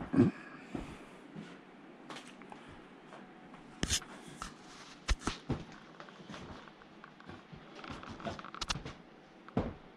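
Irregular knocks and clicks over faint room noise. The loudest is a dull thump right at the start, with sharper clicks about four and five seconds in and a quick pair near nine seconds.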